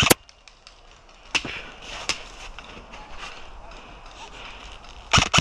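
Airsoft gun shots: sharp snapping shots, one at the start, one about a second and a half in, another about two seconds in, and two in quick succession near the end, with fainter snaps between them.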